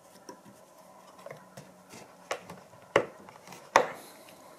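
Small hard-plastic Pelican 1010 micro case being closed: the lid is pressed shut and the latch snaps, giving three sharp clicks in the second half, the last two the loudest.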